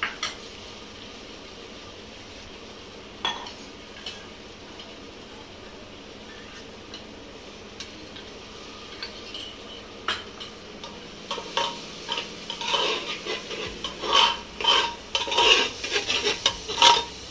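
Onions and spice paste frying in an aluminium pressure cooker with a steady sizzle and a few isolated clinks. After about ten seconds a metal ladle starts stirring, scraping and knocking repeatedly against the pot.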